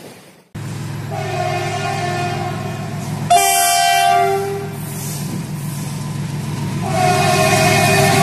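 WAG9 electric locomotive sounding its horn, two notes together, on approach to a level crossing: a long blast that grows louder about a third of the way in, a pause, then the horn again near the end. A steady low rumble from the approaching train runs under it.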